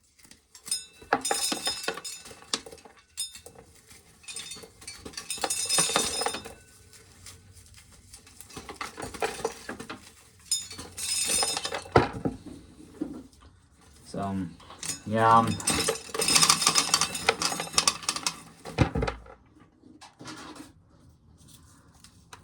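Dry corn being shelled off the cob by hand, the kernels rattling and clinking in several bursts a second or two long.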